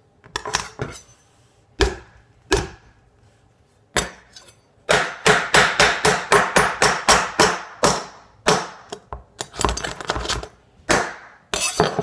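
A kitchen knife chopping down repeatedly on a RAM stick on a hard tabletop, each blow a sharp knock with a brief metallic ring. A few separate blows come first, then a fast run of about four blows a second, then more scattered ones.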